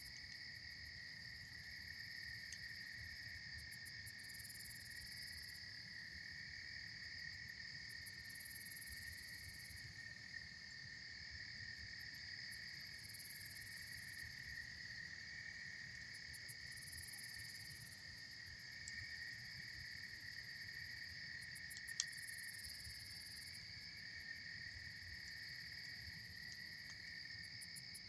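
Steady insect chorus: two continuous high trills, with a pulsing higher chirring that comes and goes. A few sharp pops from the campfire cut through it, the loudest about 22 seconds in.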